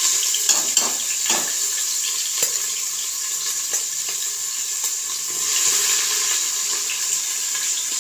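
Chopped onions sizzling in hot oil in a pressure cooker, a steady frying hiss. A few short knocks from stirring in the first couple of seconds.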